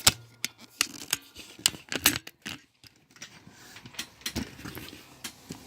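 Irregular clicks and knocks of objects being handled, several of them sharp and loud.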